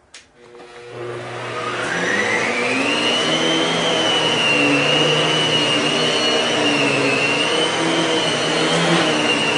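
Upright vacuum cleaner switched on: its motor whine rises over the first couple of seconds as it spins up, then runs steadily with a rushing hiss as it vacuums baking soda off a carpet.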